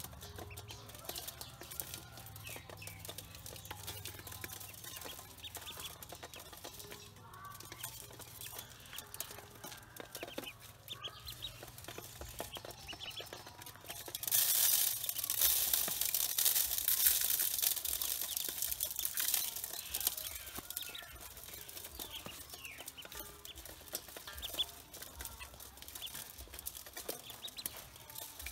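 Ducklings peeping and pecking at grain in an aluminium bowl, with many small clicks of their bills against the metal. About halfway through, a louder rustling hiss lasts for several seconds.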